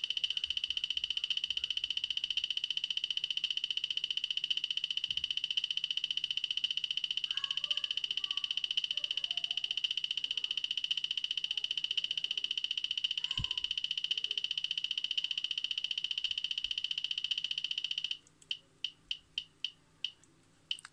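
The Sfiora Double dosimeter's piezo buzzer beeping as calibration values are keyed into it: a high-pitched beep repeating very rapidly, as when a button is held down to scroll a number. About two seconds before the end it changes to about seven single beeps, roughly three a second.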